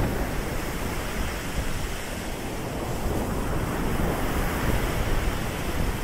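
Surf from a rough sea breaking and washing up the beach, with strong wind buffeting the microphone.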